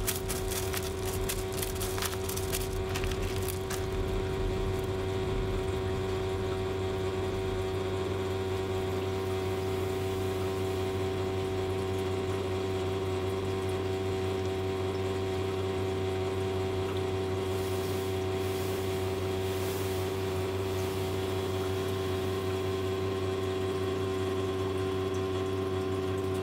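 Steady hum of a small motor with a constant tone. In the first few seconds, rapid light clicking as a kitten scratches in wood-pellet cat litter.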